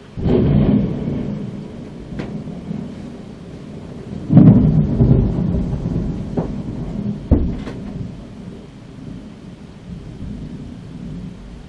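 Thunder from a close lightning strike: it breaks in suddenly and rolls on in rumbles, with a louder peal about four seconds in and a sharp crack a few seconds later, then dies away under steady rain.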